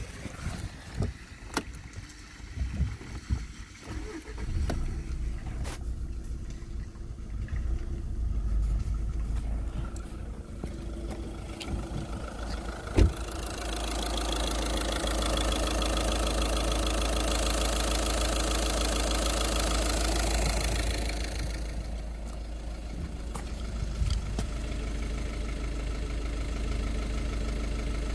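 Volkswagen 1.6 TDI (CAYC) four-cylinder common-rail diesel engine starting about four seconds in after a few clicks, then idling steadily. It is louder for several seconds in the middle.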